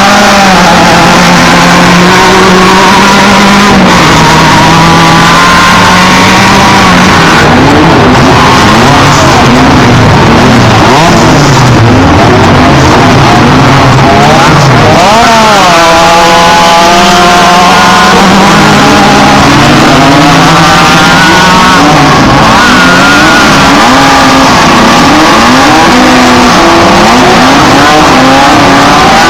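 Off-road race trucks and buggies running at high revs, several engines at once, their pitches rising and falling over one another with one sweeping sharply up and down about halfway through. Very loud throughout.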